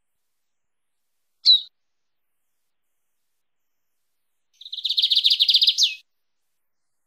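Lined seedeater (bigodinho) singing its wild-type 'mateiro' song: a single short, sharp note about a second and a half in, then a fast trill of rapidly repeated high notes from about four and a half seconds, ending on a falling note.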